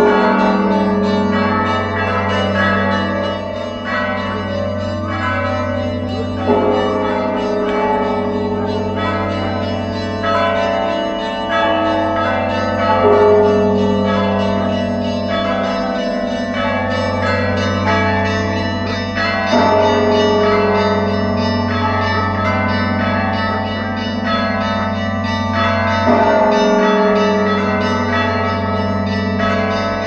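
Georgian Orthodox church bells ringing from a cathedral bell tower: several bells sound together continuously, with a heavy strike about every six and a half seconds.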